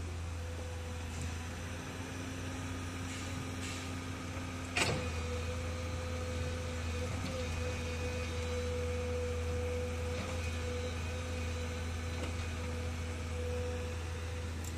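Komatsu hydraulic crawler excavator working: its diesel engine running with a steady low drone and a steady higher whine from the hydraulics as the arm and bucket dig. One sharp knock about five seconds in.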